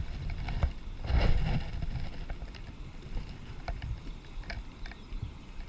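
Low wind rumble on the microphone over moving stream water, swelling in gusts near the start and about a second in, with a few light knocks and ticks.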